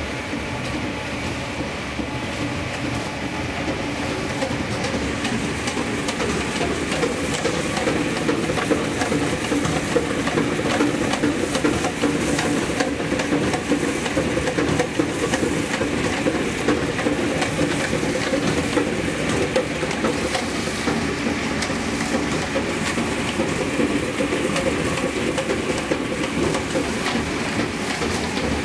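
Industrial microwave dryer line for mealworm larvae running steadily: a constant machine hum with a dense rattling clatter.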